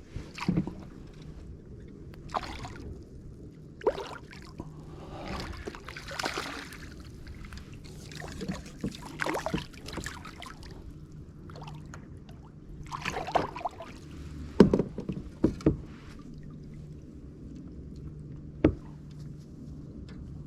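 Irregular splashing and sloshing of water from a hooked smallmouth bass being fought and landed, with a few sharp knocks, the loudest about two-thirds of the way through.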